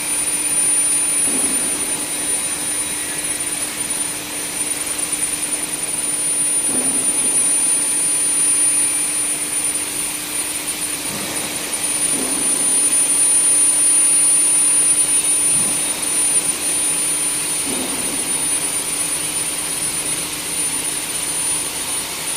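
Induction forging furnace running: a steady high-pitched whine over a constant machine hum and noise. A dull knock comes about every five and a half seconds, four times.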